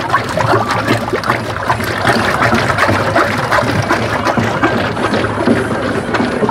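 A wooden pole churning sheer yakh (Afghan ice cream) mix in a metal pot: continuous wet sloshing with a quick run of slaps and scrapes against the pot's sides.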